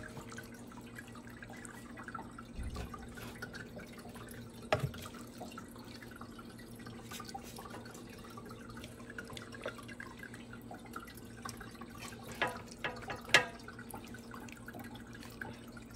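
Raw chicken thighs squelching wetly as they are pulled out of a bowl of liquid marinade, with marinade dripping, and a few sharper taps as pieces are set down in an air fryer basket, the loudest about thirteen seconds in. A steady low hum runs underneath.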